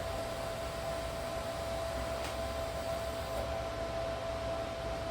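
Steady fan-like whirring noise with a constant hum, and a couple of faint ticks in the middle.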